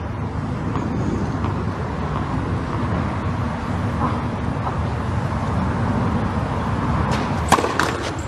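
Steady low rumble and hiss of open-air court ambience. Near the end comes a quick run of three or four sharp knocks.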